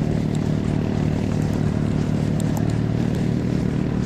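Small gasoline engine running steadily at a near-constant speed.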